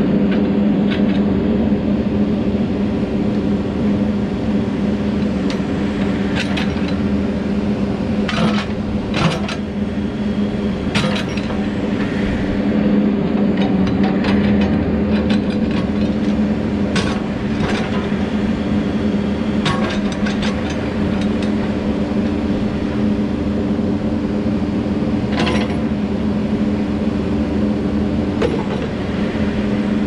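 2013 Case 580N backhoe loader's diesel engine running steadily under hydraulic load while the backhoe boom and bucket are worked, with scattered sharp metal clanks from the arm's linkage every second or few.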